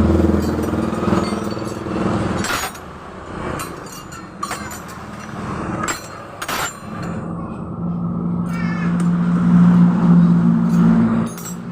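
A motor vehicle engine running steadily, dying away about two and a half seconds in. A few sharp clicks and knocks follow, and from about seven seconds in another engine hum, the loudest sound, runs until just before the end.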